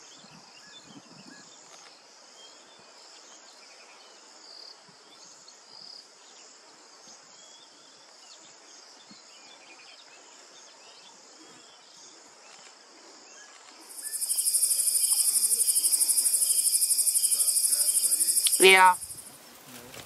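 Insects chirring faintly. About fourteen seconds in, a much louder, steady, pulsing insect chorus starts and cuts off abruptly about a second before the end. Just before it stops, a quick sweep falls steeply in pitch.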